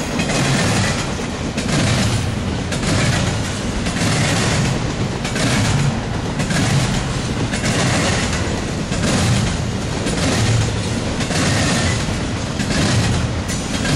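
Intermodal freight train cars rolling past at speed: a steady rumble and rail hiss with a regular clickety-clack of wheels over rail joints.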